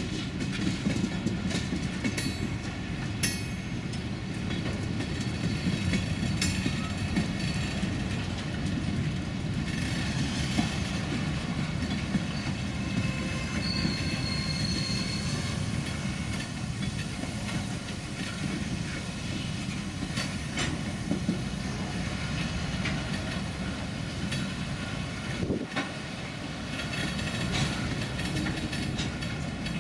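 Aberdeen and Rockfish Railroad freight train passing: tank cars, a flatcar and covered hoppers roll by with a steady rumble of wheels on rail and scattered sharp clicks and clacks. A brief high wheel squeal comes about fourteen seconds in.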